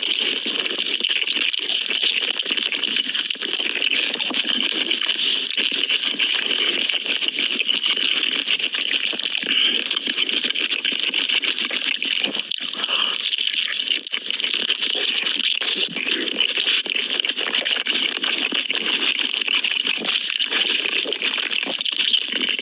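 Close-up eating sounds of Korean chicken: continuous crackly chewing and crunching at a steady level.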